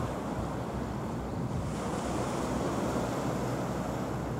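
Small waves washing onto the shore, with wind buffeting the microphone: a steady rushing noise.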